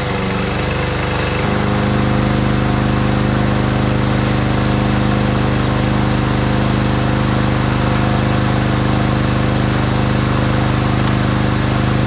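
Walk-behind lawnmower's small single-cylinder engine running steadily at a fixed speed. Its note shifts once about a second and a half in, then holds steady.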